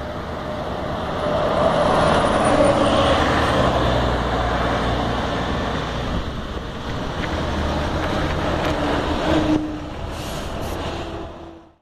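A Scania K420 double-decker coach driving past close by at road speed: engine drone and tyre noise build to their loudest about two to three seconds in. Further buses follow, and the sound fades out at the very end.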